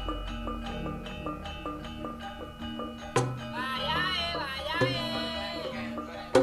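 Javanese gamelan (karawitan) music: struck metal keys ring in a steady, even beat, with a sharp drum stroke about three seconds in and again near the end. A high, wavering voice sings over the ensemble through the middle of the passage.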